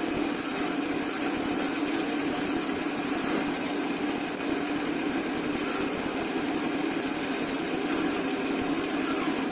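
A machine running steadily with a constant hum, with short hissing bursts every second or so.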